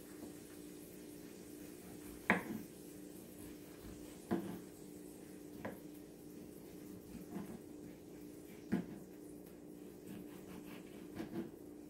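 Kitchen knife slicing tomatoes on a wooden cutting board, the blade knocking on the board every one to three seconds, with a steady low hum underneath.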